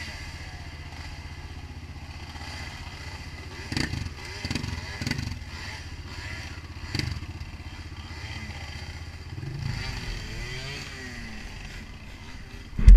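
Dirt bike engines idling and running unevenly, with a few brief revs and several sharp knocks as bikes work through a muddy rut. A sudden loud burst of engine near the end.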